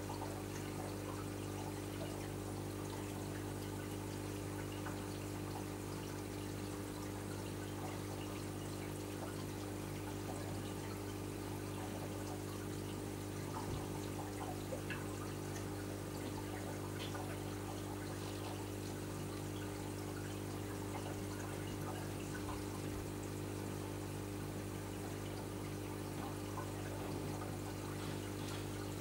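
Reef aquarium's water circulation: a steady trickle of flowing water with small bubbling ticks, over a constant low hum from the tank's pumps.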